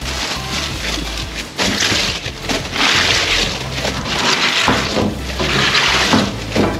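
Rustling and crackling of leafy green vegetables and plastic packaging being rummaged through by hand inside a metal dumpster, continuous with louder stretches about three and five seconds in.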